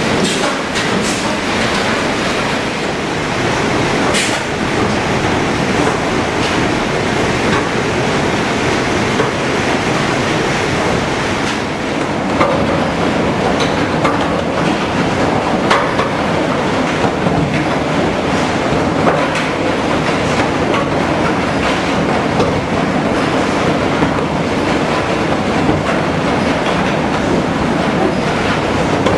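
HewSaw R200 chipper-canter sawmill line running: a loud, steady industrial din with metallic clatter and scattered sharp knocks throughout.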